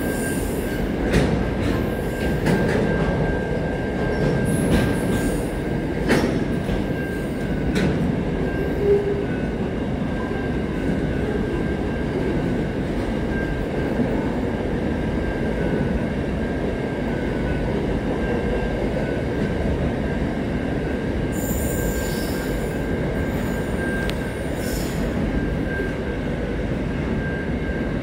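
Intermodal container wagons of a long freight train rolling past at steady speed, with a continuous rumble of wheels on rail and a thin steady whine. Sharp wheel clicks come over the first several seconds, and brief high squeals come about two-thirds of the way through.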